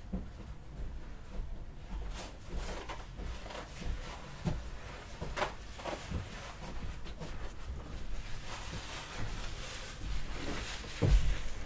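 Scattered light knocks and clicks of things being handled, with a stretch of soft rustling near the end and a heavier thump just before it ends.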